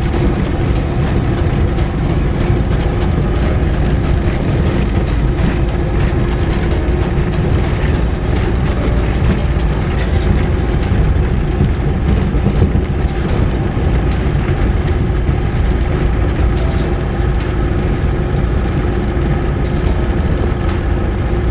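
Car driving over a snow-covered road, heard from inside the cabin: steady engine and tyre rumble, with a few short knocks along the way.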